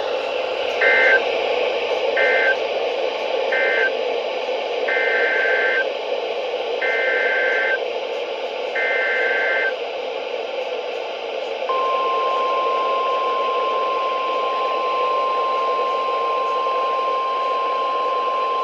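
NOAA Weather Radio alert signalling over a steady radio hiss. First come three short SAME data bursts, the end-of-message code closing the previous warning. Then three longer, warbling SAME header bursts announce a new alert, and about 12 seconds in the steady 1050 Hz warning alarm tone starts and holds.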